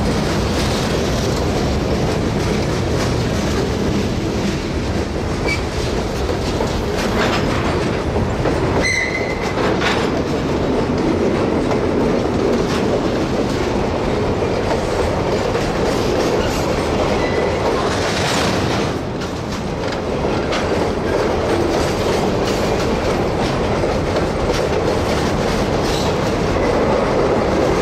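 Freight cars rolling past, a steady rumble and clickety-clack of steel wheels over the rail joints. A brief high wheel squeal comes about nine seconds in.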